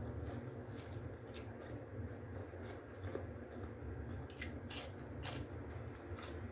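A person chewing food close to the microphone, with a handful of short, wet mouth clicks at irregular times over a low steady hum.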